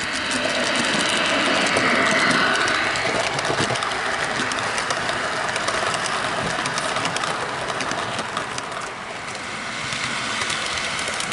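Model diesel train running on a layout: a steady engine-like running sound with many small clicks of wheels on the track.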